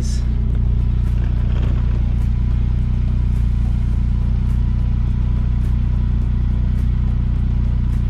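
Exhaust of a 2002 Saab 9-3's turbocharged four-cylinder engine idling steadily at the tailpipe, its rusted-through center muffler leak temporarily patched. It sounds much better, with no exhaust puffing out at the patch.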